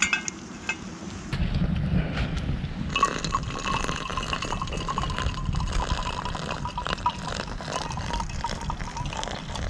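Just-boiled water poured from a kettle into a pour-over coffee maker: a steady stream with a tone that holds, over a low rumbling noise that starts about a second in.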